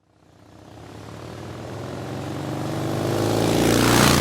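Motorcycle engine running, fading in from silence and growing steadily louder, with a rush of noise that is loudest near the end.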